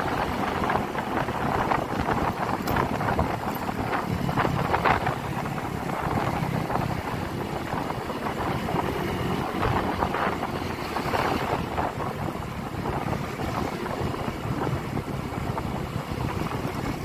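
Riding sound of a motorcycle in city traffic: steady wind rushing over a chest-mounted phone's microphone, with the bike's engine and road noise beneath.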